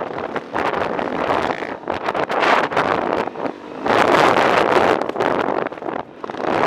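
Dirt bike under way, its engine running under heavy wind buffeting on the helmet camera's microphone; the noise swells and dips, dropping briefly about six seconds in.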